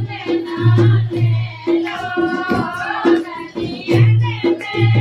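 A group of women singing a Hindi jachcha folk song together, the song sung to celebrate a newborn, over a rhythmic low beat.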